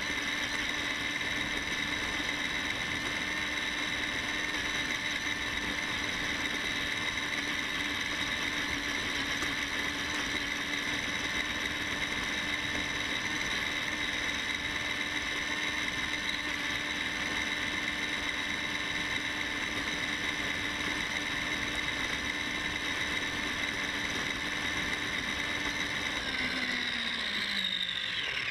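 Electric RC car's motor and gear drive whining steadily as it drives, over a rough rumble from the wheels. Near the end the whine falls in pitch as the car slows.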